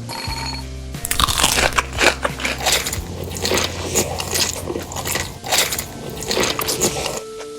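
Close-miked biting and chewing into crispy chicken, with many irregular crunches.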